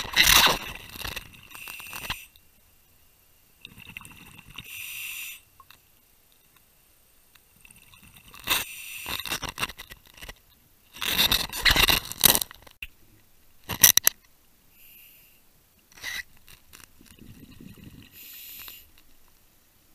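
Scuba diver breathing through a regulator underwater: hissing inhalations and bursts of exhaled bubbles every few seconds, with some scraping and a few sharp knocks of gear.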